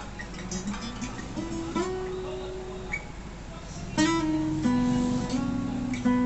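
Cranberries 41-inch acoustic guitar played as a melody of single plucked notes that ring on, some sliding up in pitch, with a sharper plucked note about four seconds in.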